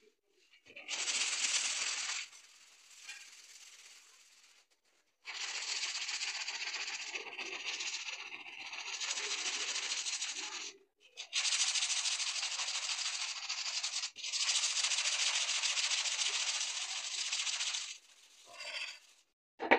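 Rusty steel handsaw blade being scrubbed hard by hand with an abrasive block: a gritty, rasping scrape in several long runs with short breaks between them, rubbing the rust off the blade.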